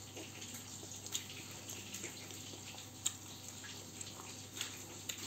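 Quiet eating sounds: chewing with small mouth clicks and smacks every second or so, over a faint steady low hum.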